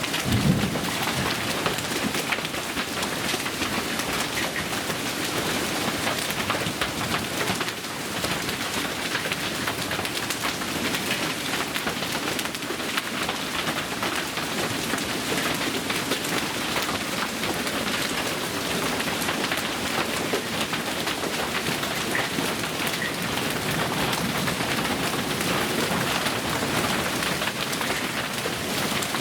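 Heavy rain pounding steadily on surfaces in a severe storm, a dense even crackling hiss, with a brief low rumble at the very start.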